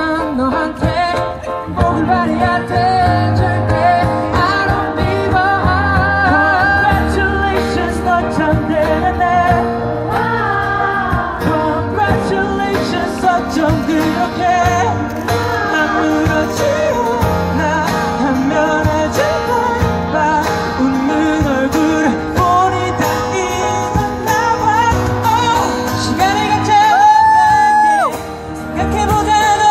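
Live acoustic band performance: male voices singing a pop ballad over two acoustic guitars, a cajon and a keyboard. Near the end a voice holds one long high note, then the music drops briefly.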